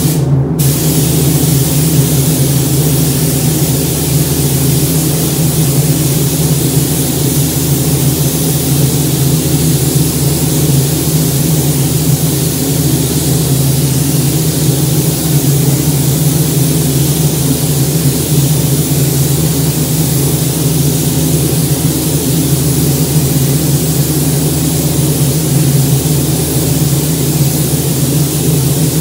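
Paint booth ventilation running: a loud, steady rush of air with a low hum under it.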